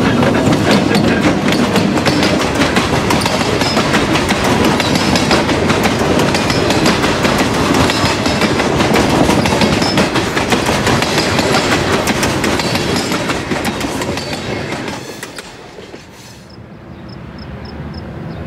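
Freight train rolling past close by: a diesel locomotive goes by, then open-top hopper cars, with steady rumble and the clickety-clack of wheels over the rail joints. The sound fades away about fifteen seconds in.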